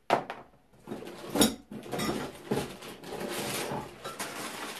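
Turbo kit parts, rubber hoses and lines among them, being handled and set down on a wooden tabletop: a few knocks and clatters, the loudest about a second and a half in, then a stretch of irregular rustling and handling noise.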